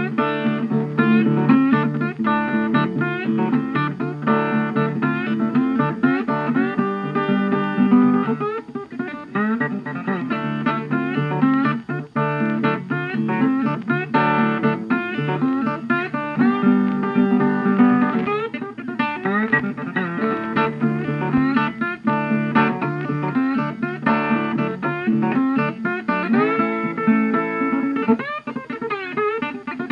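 Background music: guitar-led instrumental with plucked notes and some slide guitar.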